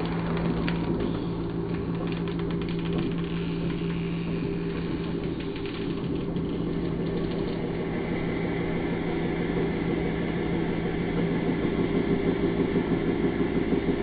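Hydraulic press pump and motor running steadily with a low drone while the ram presses down on a flattened plastic bottle, with a few faint crackles in the first second. Near the end the hum pulses fast, about four beats a second.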